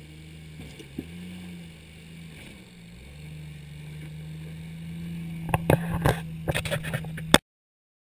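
Lifted Jeep Cherokee XJ's engine running at low, steady revs as it crawls over rock ledges, with a brief rise in revs about a second in. Near the end comes a string of loud, sharp knocks and clatter, then the sound cuts off abruptly.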